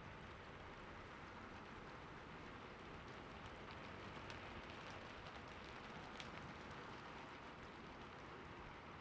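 Steady soft rainfall, an even hiss with a few faint drips ticking near the middle.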